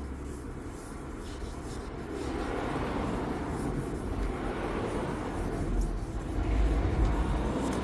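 A passing vehicle's rumble, swelling over several seconds and fading near the end.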